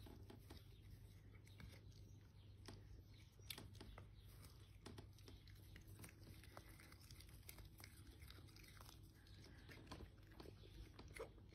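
Cats chewing and biting at cat grass: faint, irregular crunchy clicks over a low steady hum.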